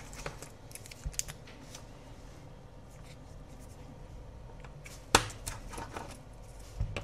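Scattered small clicks and taps of a precision screwdriver and hinge covers being worked off a MacBook Pro's hinges, with the sharpest click about five seconds in.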